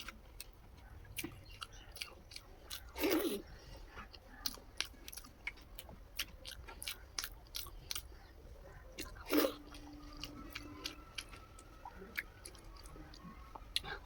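Close-up chewing of curry rice and egg: many small wet mouth clicks throughout, with two louder bites or crunches about three seconds in and again around nine seconds.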